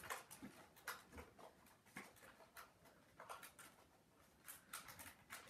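Near silence: quiet room tone with a few faint, scattered clicks and rustles.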